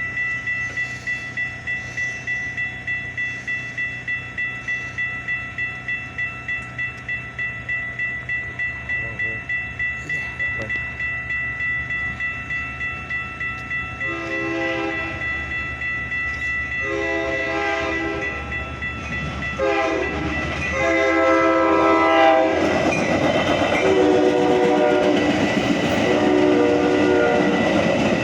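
Railroad grade-crossing warning bell ringing about three strokes a second. About halfway through, an approaching Metra train's horn sounds a series of blasts, the last one long, in the pattern of the crossing signal. The train then passes with loud rumble and wheel clatter near the end.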